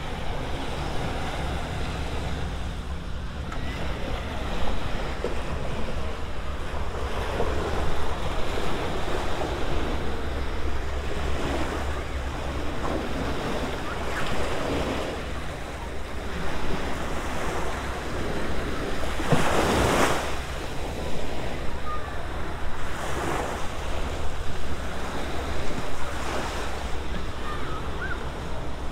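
Small surf washing up the sand and around concrete pier pilings in gentle swells, over a steady low rumble of wind on the microphone. There is one sharper, louder burst about two-thirds of the way through.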